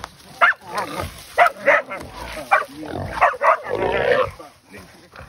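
Hunting dogs barking and a caught wild hog squealing as the dogs hold it down, in a run of short, sharp cries about once a second.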